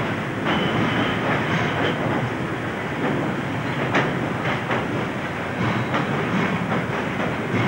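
Railway wagons rolling along the track, wheels clicking over the rail joints, with irregular sharp clanks, the loudest about four seconds in.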